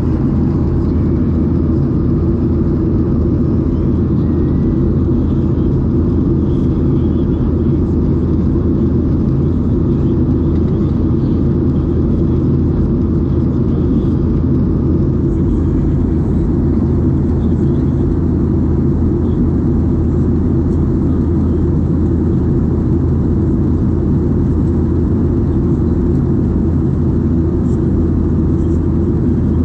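Steady drone of a Boeing 737-800 in flight heard inside the passenger cabin: its CFM56 jet engines and the rush of air past the fuselage making a loud, even, low rumble.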